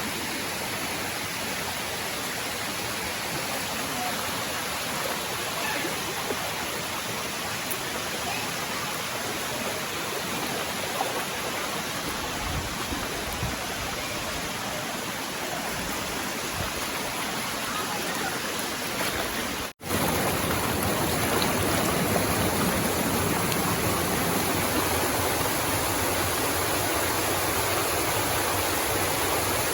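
Waterfall: water rushing steadily over rocks. It cuts out for an instant about twenty seconds in and comes back a little louder.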